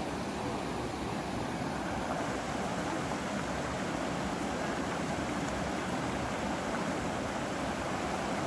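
Mountain stream rushing over rocks in pocket water: a steady, even roar of running water.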